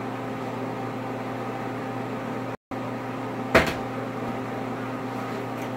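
A plastic water bottle hits a wooden tabletop with a single sharp knock about three and a half seconds in. A steady electrical hum runs underneath.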